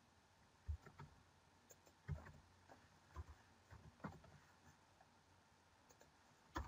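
Faint, irregular clicks of a computer keyboard and mouse: single keystrokes and short runs of taps with pauses between them.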